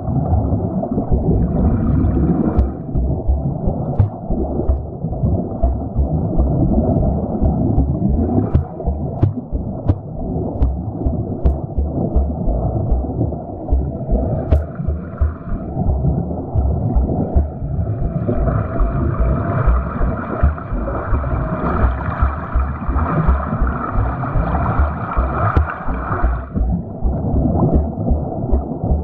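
Swimming water sounds of a swimmer's catch-drill strokes: continuous churning and gurgling water with a low rumble, heard muffled. A hissier splash-and-bubble layer swells for several seconds in the second half.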